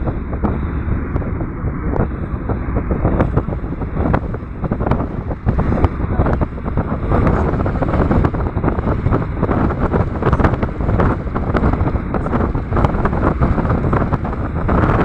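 Wind buffeting the microphone: a loud, steady rumble with frequent crackling gusts.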